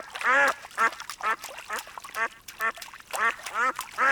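Duck quacking repeatedly in an even series, about two quacks a second.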